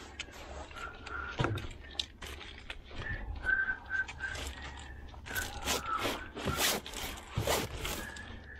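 Fishing net being hauled in by hand: repeated scraping and sharp clicks of net and gear being handled, with a run of short high whistle-like squeaks a few seconds in and again near the end.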